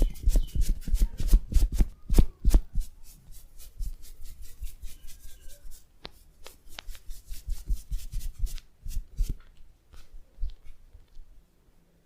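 Massage percussion: hands tapping rapidly on the body, several strikes a second at first, then sparser, quieter taps that die away near the end.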